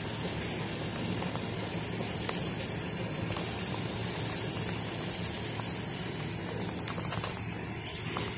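Heavy rain pouring down in a steady hiss, with a few short sharp taps.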